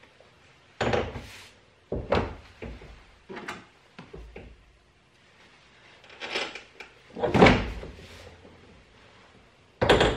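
Hard plastic interior trim panel being fitted into a Smart car's rear cargo area by hand: a series of short knocks and clunks, about seven in all, the loudest about seven seconds in.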